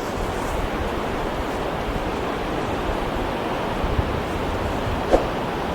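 Steady rush of ocean surf, an even wash without distinct breaks. A short click sounds once, about five seconds in.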